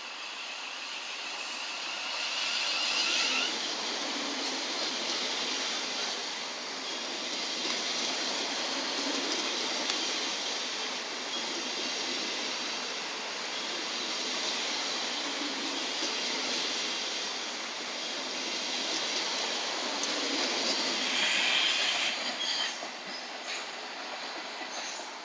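Thameslink Class 700 electric multiple unit running alongside the platform: a steady rush of wheels on rail, with a high squealing tone for the first three seconds or so.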